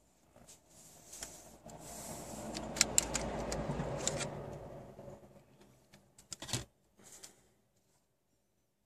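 Handling noise from a removed Blaupunkt CD car stereo being turned over in the hands: sharp clicks and taps of its plastic faceplate and metal case, over a rushing rubbing sound that swells up and dies away in the middle.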